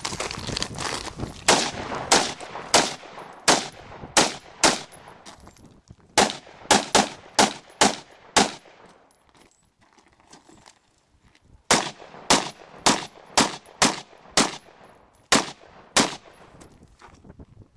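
AR-15 carbine firing quick semi-automatic shots in strings, about two to three cracks a second. The firing stops for a few seconds near the middle and then resumes.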